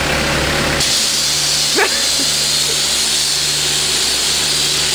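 Self-service car-wash pressure-washer lance spraying water onto wet concrete: a loud, steady high hiss that starts about a second in, over the steady hum of the wash machinery. A brief rising squeak comes in the middle.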